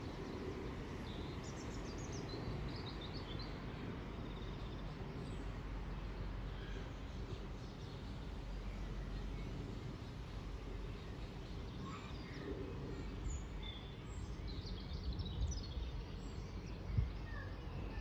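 Birds chirping and singing over a steady low outdoor rumble, with a brief low thump near the end.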